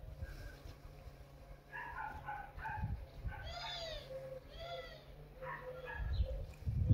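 Cat meowing several times: a run of short mews, then a few longer ones that rise and fall in pitch. A low rumble comes in near the end.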